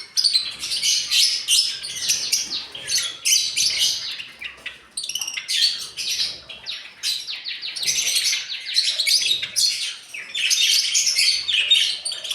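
A flock of small aviary birds chirping together, many rapid, overlapping high calls without a break.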